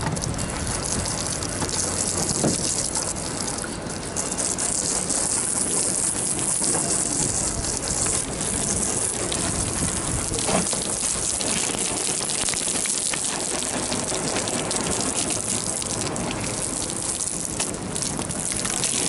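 Water spraying steadily onto a boat as it is washed, a continuous even gush.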